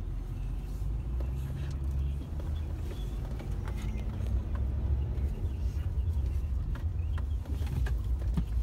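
Low, steady rumble of a car driving, engine and road noise heard from inside the cabin.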